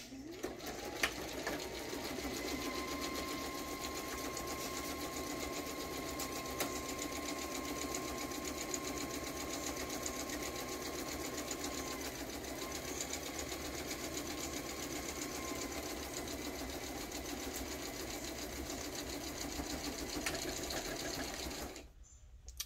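Domestic sewing machine stitching at a steady fast pace for about twenty seconds, then stopping suddenly near the end.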